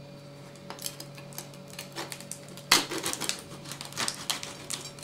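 Scattered light clicks and taps from handling the dense, heavy loaf and the bread machine's pan, with a sharper knock a little before three seconds in.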